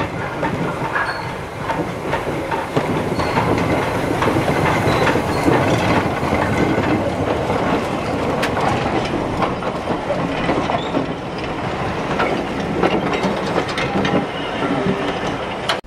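A short train with two 0-4-0 saddle-tank steam locomotives, a Robert Stephenson & Hawthorns and an Andrew Barclay, and a coach passes close by. Its wheels clack over the rail joints and its running gear rattles, loudly and steadily.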